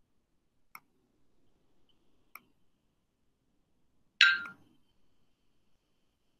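Two faint computer mouse clicks, then a louder, sharper click with a brief ring about four seconds in.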